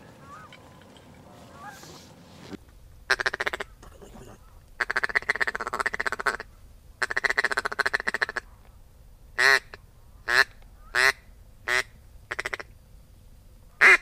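Mallard duck call blown in loud quacks after a quieter first couple of seconds: three long runs of rapid quacks, then single falling quacks about a second apart, then a quick run of quacks at the end, calling to an incoming duck.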